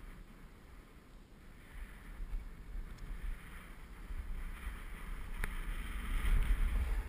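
Snowboard sliding and scraping over packed, cut-up snow, with wind buffeting the camera's microphone. It grows louder from about four seconds in, and there is one sharp click about five and a half seconds in.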